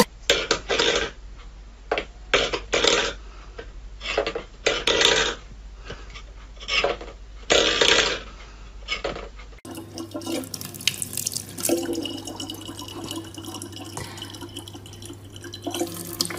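A stainless steel bowl scraping and clattering on a wooden floor under a cat's paw, in about a dozen short, uneven bursts. About ten seconds in this gives way to a kitchen tap running steadily in a thin stream, with a low hum underneath.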